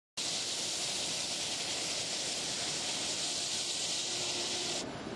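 Steady, loud hiss of jet aircraft engine noise on an airport apron. It drops suddenly to a quieter, duller background near the end.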